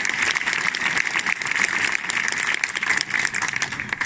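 Crowd applauding: dense, steady hand-clapping that starts to die away at the very end.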